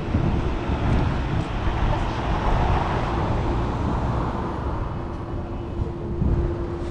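Street traffic noise with a low rumble; a vehicle goes by about two to four seconds in, and a steady engine hum sets in near the end.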